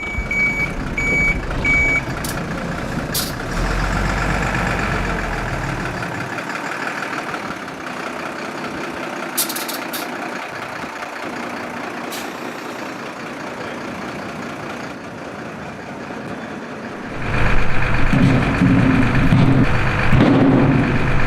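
A heavy vehicle's reversing alarm beeping about twice a second for the first two seconds, then the vehicle's engine running steadily and getting louder and deeper about three-quarters of the way in.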